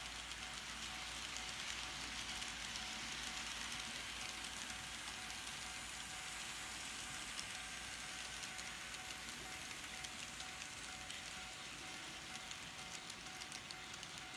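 N scale model freight train running on the layout track: a faint steady whir with light, irregular clicking of the cars' wheels over the rail, the clicks growing more frequent near the end.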